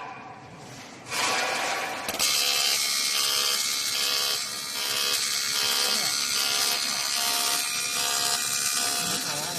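Automatic TIG welding arc on a 3 mm aluminium pipe seam: a hiss starts about a second in, and about two seconds in a steady buzz with a bright hiss joins it and holds evenly.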